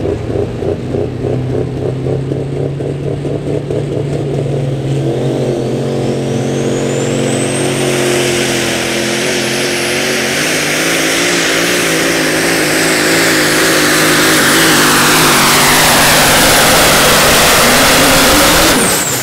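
Super stock diesel pulling truck making a pull: the turbocharged diesel engine starts at low revs with a pulsing note, then a turbocharger whine rises from about four seconds in and holds high as the engine runs flat out under load, growing steadily louder. Near the end the engine drops off suddenly and the whine falls away.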